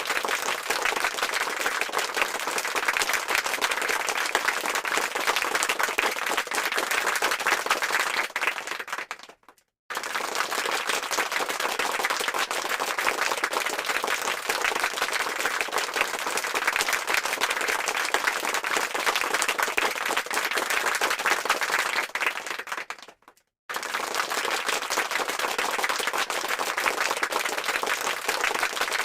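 Applause sound effect: a crowd clapping densely and steadily. It fades out twice, a little after a third of the way in and again near the end, with a second or less of silence before the same applause starts again abruptly.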